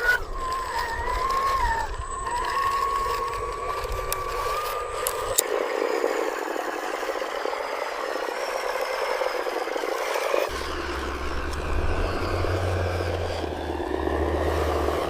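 Small electric motors of radio-controlled construction machines running, with a whine that wavers in pitch for the first few seconds. This gives way to a rougher grinding whir. A low hum comes in about two-thirds of the way through.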